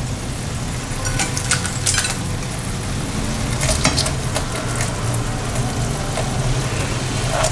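Soy-sauce and brown-sugar sauce bubbling and sizzling in a frying pan as pieces of fried tofu skin soak in it, with a few sharp clicks of a utensil against the pan.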